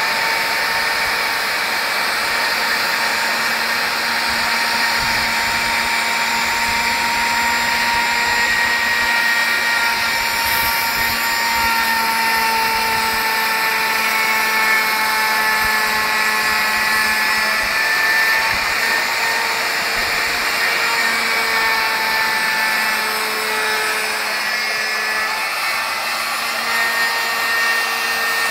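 Ryobi plunge router running steadily while cutting a scarf bevel in plywood in a scarf jig. Its whine dips and shifts slightly in pitch a few times as the bit bites into the wood.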